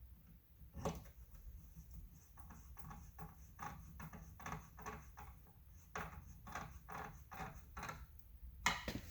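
A small screw being turned in by hand into a car's door mirror assembly, making a run of short, faint clicks at about three a second. A louder click comes about a second in and another near the end.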